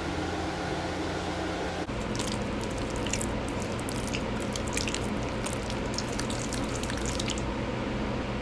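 Wet dyed chalk crackling and crunching in water, a dense run of small sharp crackles from about two seconds in until near the end, over a steady background hum.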